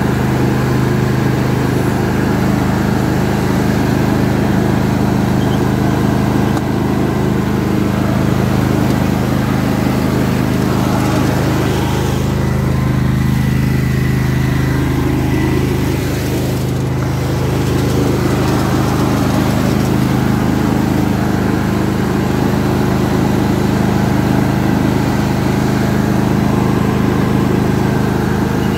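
John Deere D140 riding mower's engine running steadily at a constant speed.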